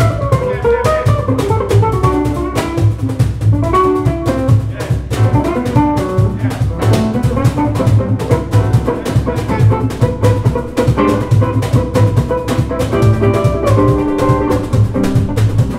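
Small jazz band playing live: upright double bass, drum kit with frequent cymbal strokes, piano and guitar, with a melody line moving stepwise over the rhythm.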